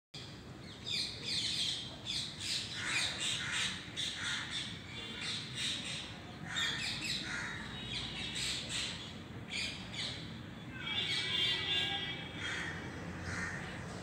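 Birds calling outdoors in many short, overlapping chirps and squawks. The calls are loudest about a second in, again around three seconds, and again around eleven seconds.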